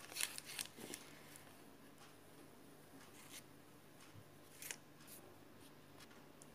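Near silence with a few faint clicks and rustles as a hand works flour into soft dough in a plastic mixing bowl.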